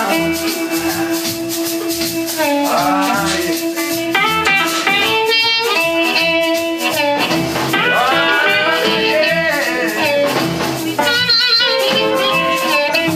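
Live electric blues band playing: harmonica with long, wavering, bending notes over electric guitar, electric bass and a drum kit.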